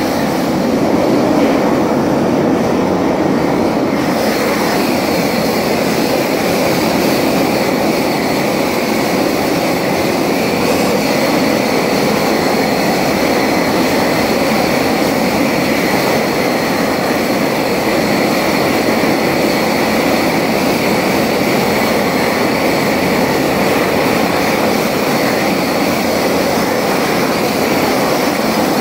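Propane torch with a bell-shaped burner head running at full flame: a loud, steady rush of burning gas with a faint high whine over it.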